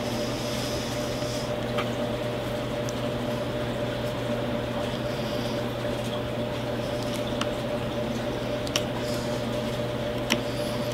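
Steady mechanical hum filling the room, with faint scraping and a few light clicks as a craft knife cuts a strip of cowhide along a steel square.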